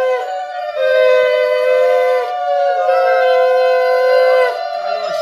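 Several conch shells (shankh) blown together, holding long steady notes at two slightly different pitches. Each note sags in pitch as the breath runs out, and breaks briefly before the next blast.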